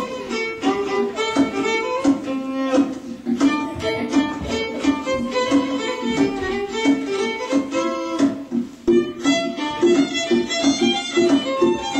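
Instrumental music: a tune in quick, bowed-string notes, which dips briefly a little past halfway and picks up again with faster repeated notes.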